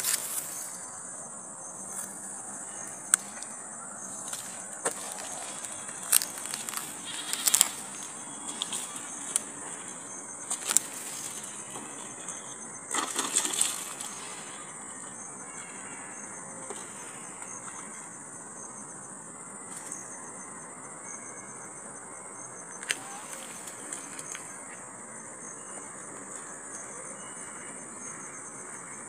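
Insects, crickets or the like, chirring in a steady high buzz, with scattered sharp clicks and knocks in the first half, the loudest cluster about halfway through.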